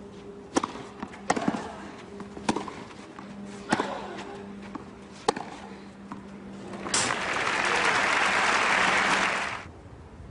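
Tennis rally on a clay court: a serve and then about five racquet strikes on the ball, roughly one every second or so. About seven seconds in, the crowd applauds for some two and a half seconds and then stops.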